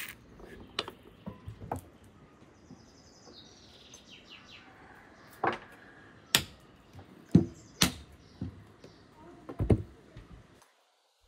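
Sharp wooden knocks and clicks every second or so as ripe apricots are pitted by hand and their stones dropped into a small wooden bowl. A small bird chirps briefly a few seconds in.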